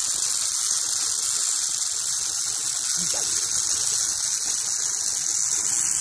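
Steady high whirring hiss of a sky bicycle's grooved wheels rolling along its steel cable.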